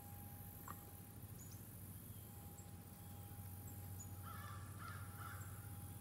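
A crow cawing in a short run about four seconds in, over faint repeated high chirps and a steady low hum of the outdoor background.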